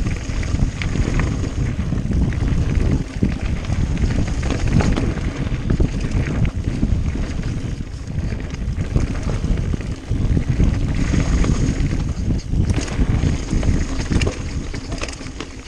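Mountain bike riding down a rocky trail: wind buffeting the microphone over the rumble of the tyres, with frequent short rattles and clacks as the bike hits rocks.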